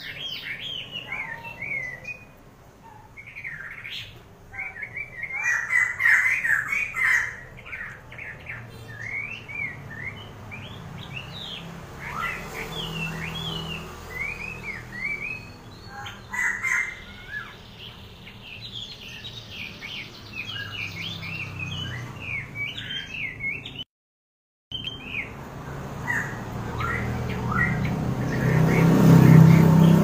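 A caged wambi songbird sings a rapid, varied string of short up-and-down chirps and twitters in quick runs. There is a brief cut-out about three-quarters of the way through, and a low rumble swells near the end.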